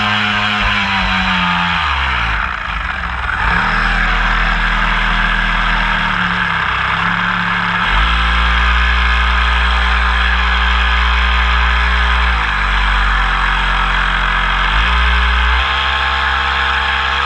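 Homemade RC boat's motor running, heard through a GoPro mounted on its deck, over the rush of water along the hull. Its pitch drops away about two seconds in, climbs again, then shifts up and down several times as the throttle changes.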